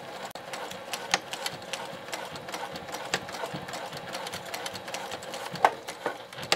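Juki sewing machine running steadily, stitching a triple-tack row through grosgrain webbing on silpoly tarp fabric, with a few sharp clicks along the way, the loudest near the end.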